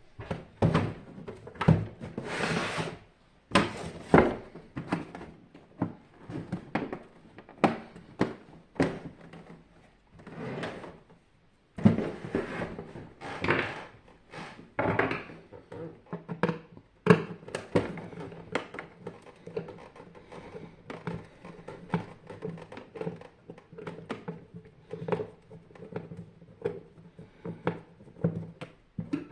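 Irregular knocks, clicks and scraping of tools and metal parts being handled while an electric water heater is taken apart, with a brief pause a little over ten seconds in.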